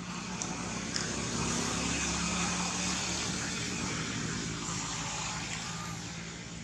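A motor vehicle passing by: a steady engine and road noise that swells to its loudest about two to three seconds in, then slowly fades.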